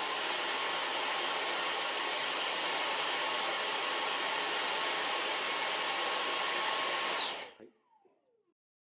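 A small motor-driven blower running with a steady rushing hiss and a faint high whine. It is switched off about seven and a half seconds in, and its pitch falls away as it spins down.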